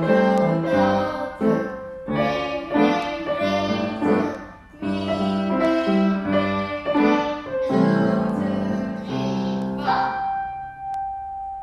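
Upright piano played as a four-hand beginner duet: a simple tune of single notes over low chords at a steady pace. It ends on a held note that rings on near the end.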